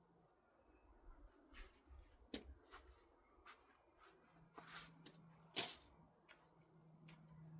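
Faint, scattered rustles and light clicks of objects being handled, with one sharper knock about five and a half seconds in, over a faint steady low hum.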